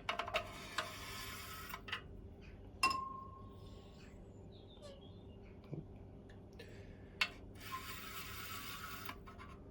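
Water squirted from a syringe into the filler hole of a Mamod SE1 toy steam engine's boiler: two hissing spurts of about a second and a half each, one near the start and one near the end. Light clicks and clinks come between them, including a short metallic ping about three seconds in.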